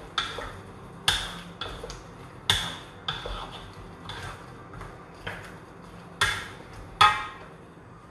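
Wooden spatula stirring sweet and sour prawns in a metal wok, knocking against the pan's side in irregular strokes about once a second, each knock with a short metallic ring.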